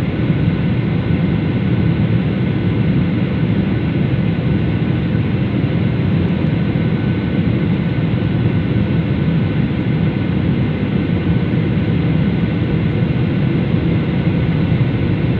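Steady cabin drone of a Boeing 737 airliner in descent, heard from a window seat: engine and airflow noise, deep and even, with faint steady whines above it.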